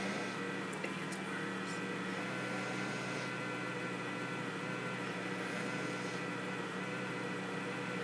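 A steady mechanical hum with a fixed pitch that holds unchanged throughout, with a faint hiss that swells and fades over it.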